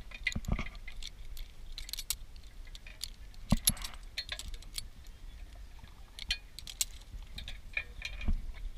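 Metal carabiners and buckles on zip-line harness lanyards clinking irregularly as the webbing straps are gathered and handled, with scattered light clicks and one sharper clack about three and a half seconds in.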